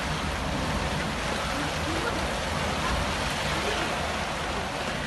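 Heavy monsoon rain pouring down, a steady, even hiss.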